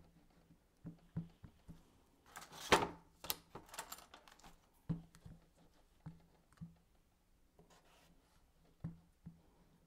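Faint taps and knocks of a plastic ink pad and an acrylic stamp block pressed and tapped together on a tabletop while a rubber stamp is inked. One louder knock comes about three seconds in.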